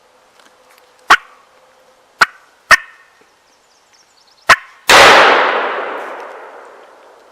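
A wild turkey gives four sharp alarm putts, then a single shotgun shot booms and echoes away over about two seconds.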